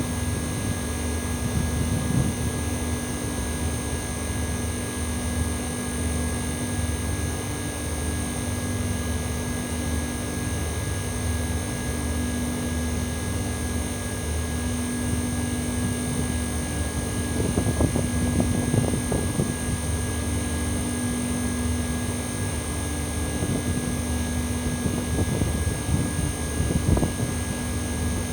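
Outdoor unit of an old Mitsubishi Electric Mr.SLIM commercial air conditioner running steadily in cooling mode: compressor and propeller fan giving a constant hum, with a high, metallic whine over a distinctive mid-range tone. A few brief noisy surges come in around the middle and near the end.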